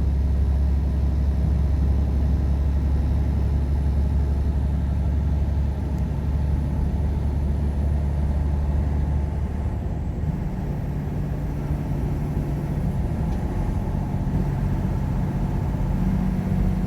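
Semi-truck engine and road noise inside the cab, a steady low drone whose note changes about ten seconds in.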